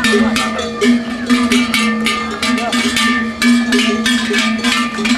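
Bells on the harness of a pair of yoked oxen drawing a wooden cart, clanging rapidly, about four or five strikes a second as the oxen walk, with a steady ringing tone under the strikes.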